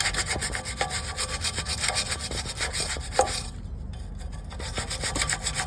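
A brush scrubbing back and forth across the fins of a sprayed-down HVAC blower wheel (squirrel-cage fan), a quick, even run of scraping strokes that pauses for about a second a little past halfway and then picks up again.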